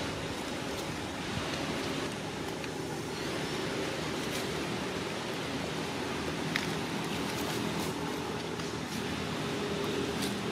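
Steady outdoor background noise, a low hum under a hiss, with one sharp click about two-thirds of the way in and a few faint ticks after it.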